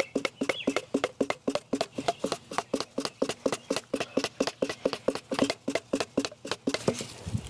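Rapid, even clicking or tapping, about six clicks a second, that stops shortly before the end.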